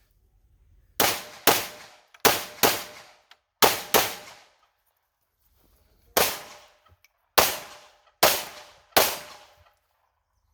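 Pistol shots fired in a timed string: ten shots, the first six in three quick pairs about half a second apart, then four single shots about a second apart, each with a short echoing tail.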